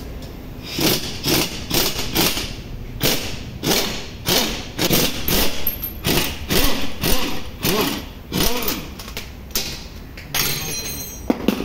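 Pneumatic impact wrench on a car's rear axle, run in about fifteen short trigger bursts that each spin up and die away, with a longer run near the end.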